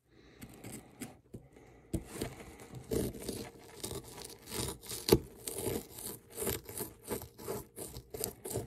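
Plastic digging pick scraping and chipping at a plaster dig-kit block, in quick short scratching strokes about three a second. Sharp clicks about two seconds in and again about five seconds in.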